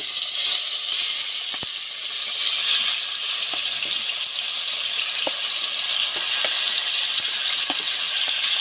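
Marinated chicken pieces sizzling steadily in hot oil in a pot as they are added, with a few light clicks.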